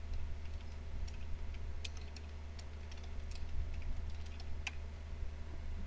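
Computer keyboard being typed on: a scatter of light keystroke clicks over a steady low hum.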